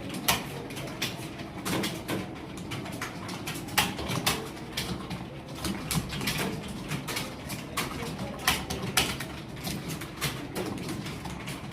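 Computer keyboard keys clicking in an uneven run of typing, a few keystrokes a second, over a low steady murmur.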